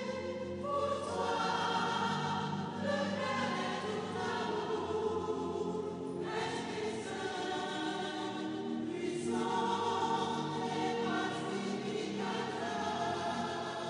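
Church choir singing a slow hymn in long held phrases, the chord changing about every three seconds.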